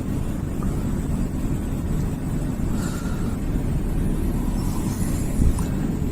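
Steady road and engine noise inside a moving car's cabin, a low rumble that holds even.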